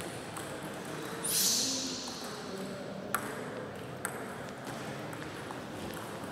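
Two sharp clicks of a table tennis ball, about a second apart, after a short hiss a little over a second in. The ball is being bounced before a serve.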